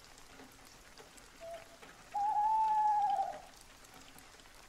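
Steady light rain with a whistle-like call over it: a short lower note about one and a half seconds in, then a louder, longer note a little higher, held for over a second and sinking slightly at the end.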